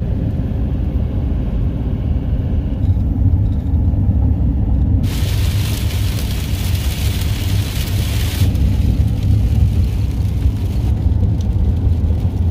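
Steady low road and engine rumble inside a pickup truck's cab at highway speed. From about five seconds in until about eight and a half seconds, a loud hiss of rain and wet-road spray joins the rumble.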